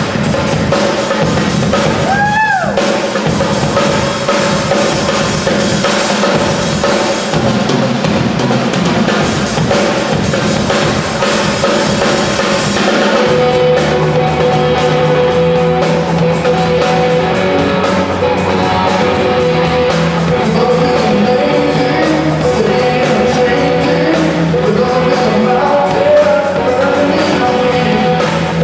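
A live amateur rock band playing a worship song: drum kit, electric and acoustic guitars and a lead singer. About halfway through the arrangement changes and a steady bass line comes in under the guitars and voice.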